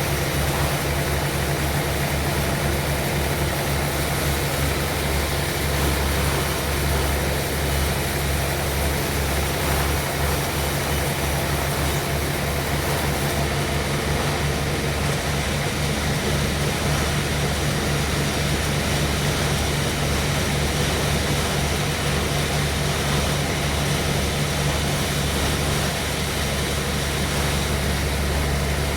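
Sawmill machinery running steadily while durian logs are sawn into boards: an unbroken low engine drone with an even hiss above it.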